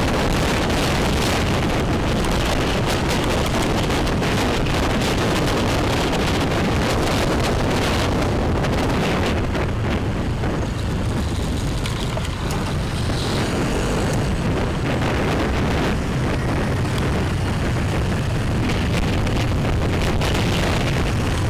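Riding a motorbike at speed: steady wind rush on the microphone over the engine and road noise.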